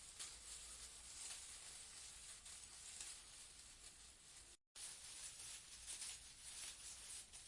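Leaves rustling in a breeze: a faint, continuous, crackly rustle that rises and falls in small gusts. It cuts out completely for a fraction of a second a little past halfway, then resumes.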